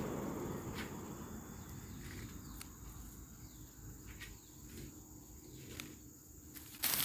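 Insects trilling steadily at a high pitch, like crickets, over a low rumble that fades away in the first couple of seconds. A few faint ticks fall in between, and a sudden loud noise starts just before the end.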